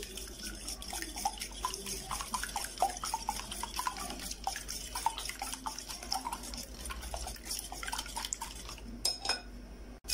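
Wire whisk beating eggs in a glass bowl: rapid, irregular clicking of the wires against the glass over the wet slosh of the eggs, easing off about nine seconds in.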